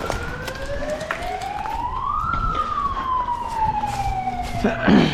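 Siren winding up in pitch for about two seconds, then slowly winding down: the signal that the airsoft game is over. A short, loud noise comes near the end.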